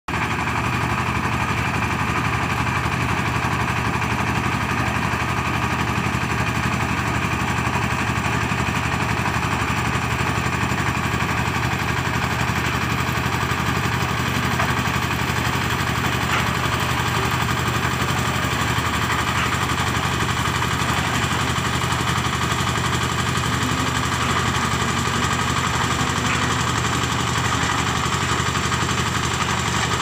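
Engine of a one-bag concrete mixer with a lift attachment, running steadily as it drives the hoist that carries the bucket up the mast.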